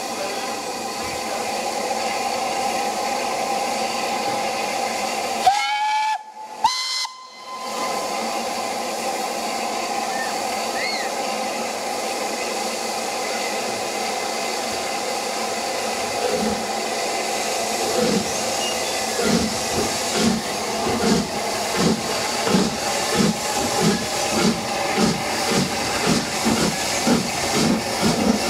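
SR Schools Class 4-4-0 No. 925 steam locomotive hissing steadily with steam, with a short whistle about six seconds in. Past the middle, its exhaust beats start up and slowly quicken as it pulls away from a stand.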